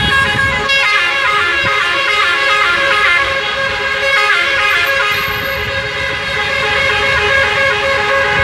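Many car horns sounding at once in a celebratory honking convoy: several steady horn tones at different pitches held without a break, with shorter toots chopping in and out over them, above the noise of slow traffic.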